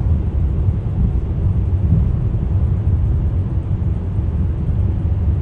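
Steady low road and engine rumble heard from inside a Honda Fit's cabin while it cruises at expressway speed.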